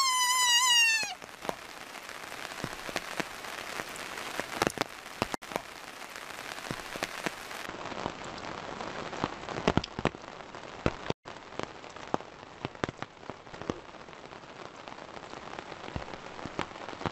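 A fawn gives one high bleat that falls slightly in pitch. Then rain patters steadily, with many close drops ticking sharply.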